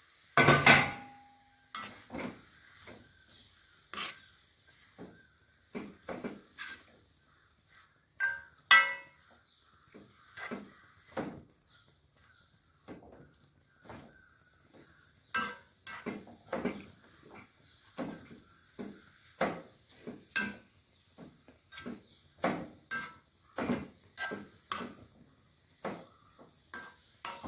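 A spatula stirring and scraping a dry, shredded jackfruit-core thoran around a kadai, in short irregular scrapes and knocks about once or twice a second, with a louder knock of the spatula on the pan about half a second in.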